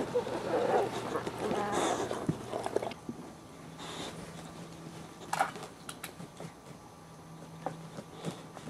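Puppies making small vocal whines and grunts for the first three seconds. After that it is quieter, with a few scattered sharp clicks and scuffles as they move about.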